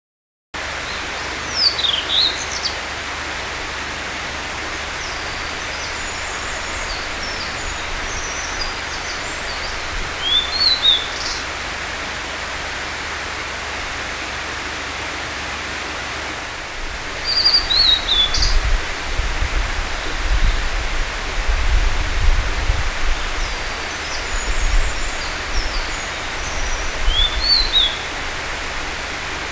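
Blue-and-white flycatcher singing: four short phrases of quick, sliding whistled notes, several seconds apart, over a steady background rush. A low rumble comes in during the second half.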